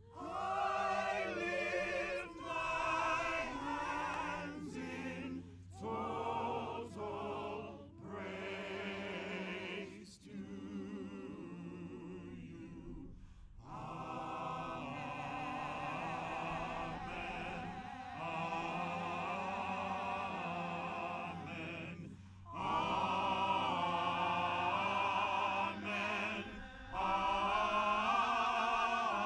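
Gospel choir singing in long held phrases, with short breaks between them.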